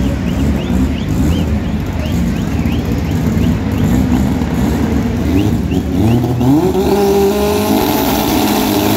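Drag-racing car engines running loud, with a short chirp repeating about two to three times a second. About six seconds in, one engine revs up and holds at high revs.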